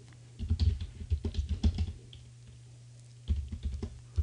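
Typing on a computer keyboard: a quick run of keystrokes for about a second and a half, then a shorter cluster of keystrokes near the end.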